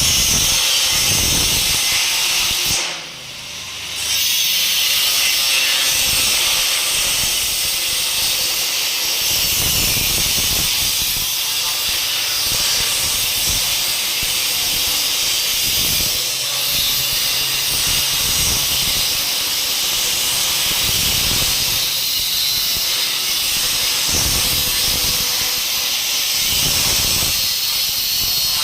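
Electric arc welding on steel: a steady hiss that breaks off briefly about three seconds in and then resumes.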